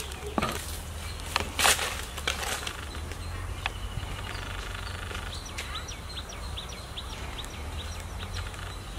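Outdoor ambience: a few scuffs and rustles of footsteps in the first seconds, then a small bird chirping a quick run of short falling notes, over a low steady rumble.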